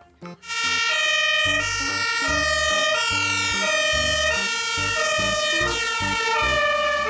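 Fire engine's two-tone siren sounding, a high and a low note alternating steadily about once a second.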